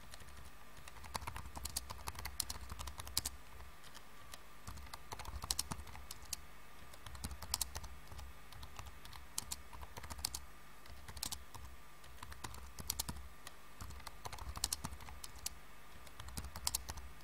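Faint, irregular light clicking in short runs, typing on a computer keyboard, with a faint steady tone underneath.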